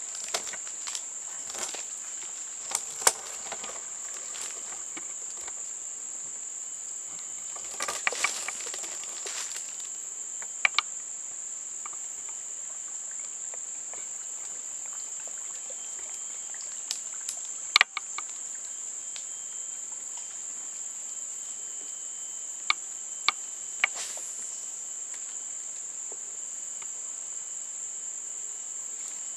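Steady, high-pitched drone of insects in the surrounding vegetation, holding one pitch, with a few sharp clicks and brief rustling now and then.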